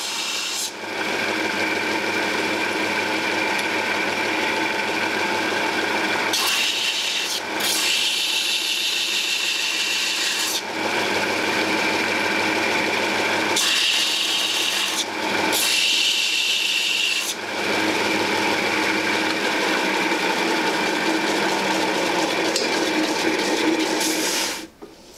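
Small electric belt sander running steadily, with a metal handle pin pressed against the belt four times for a second or more each, giving a hissing grind as its ends are chamfered. The motor cuts off near the end.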